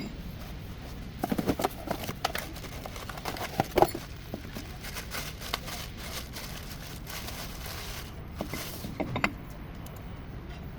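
Irregular clicks and clanks of hand tools and metal parts being handled, densest in the first few seconds and again near the end, over a steady low hum.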